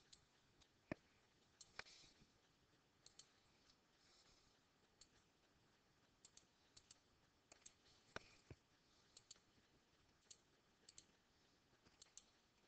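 Faint computer mouse clicks at an irregular pace, some single and some in quick pairs. A few stand out louder, about a second in, near two seconds and about eight seconds in.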